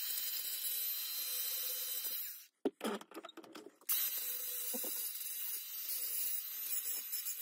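Electric angle grinder running and cutting into cast aluminium, a steady high-pitched whine. A little past two seconds in it drops away for about a second and a half with a few sharp knocks, then runs steadily again.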